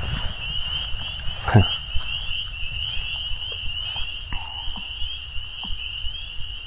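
A steady, high-pitched chorus of frogs calling, made of rapid overlapping chirps. About one and a half seconds in there is a single short, louder sound that falls in pitch.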